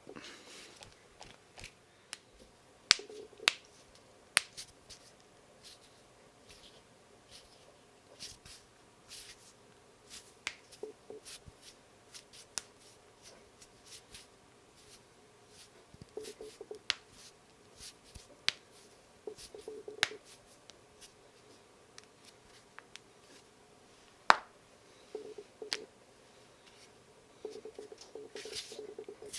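Knuckles cracking: sharp single pops at irregular intervals, a few much louder than the rest, the loudest about three seconds in and about twenty-four seconds in, with soft rustling between them.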